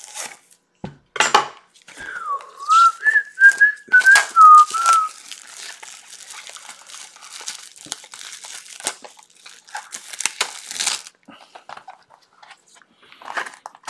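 A person whistling a short wavering tune for about three seconds, over the crinkling and tearing of plastic shrink-wrap being peeled off a trading card box, which carries on for several seconds after the whistling stops.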